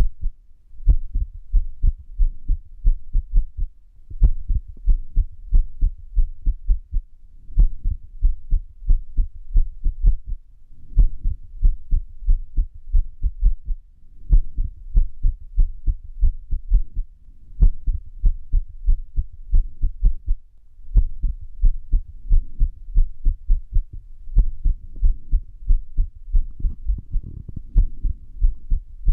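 Heart sounds with an irregular rhythm, the sign of an arrhythmia: runs of quick, low thumps broken by a short pause about every three and a half seconds.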